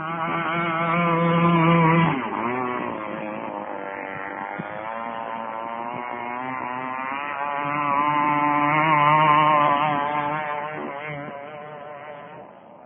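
23cc two-stroke outboard on a quarter-scale RC tunnel-hull boat running at speed. It passes close twice, loudest about two seconds in with its pitch dropping as it goes by, and again around nine seconds, then fades into the distance near the end.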